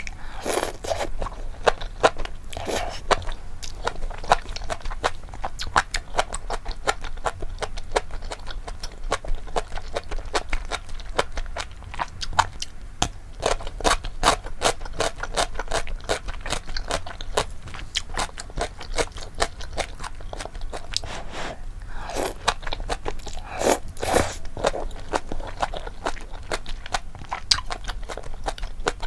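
Close-miked eating of mala tang with bunmozi noodles: steady chewing and biting with a dense run of fast wet clicks and crunches, with two louder stretches near the end.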